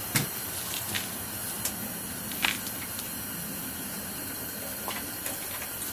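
Steady hiss of a portable heater running, with a few light clicks and taps from hands working at the snowblower engine's oil filler.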